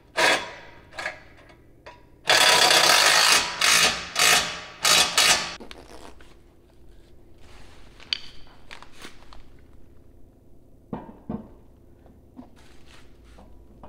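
A ratchet wrench tightening bolts on a steel swing-out spare tire carrier. It runs in one loud stretch about two seconds in, then in several shorter bursts, followed by light clicks and knocks as the spare wheel is handled.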